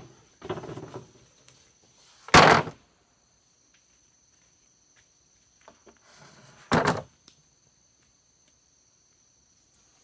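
A long bamboo pole dropped onto dirt ground: a loud thud about two and a half seconds in, and a second thud near seven seconds as it is dropped or shifted again, with softer shuffling before each.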